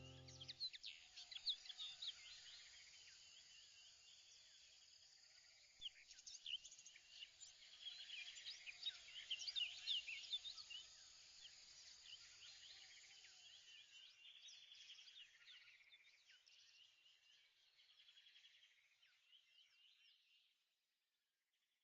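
Faint chorus of small birds chirping, many short high chirps overlapping, busiest around the middle and fading out near the end.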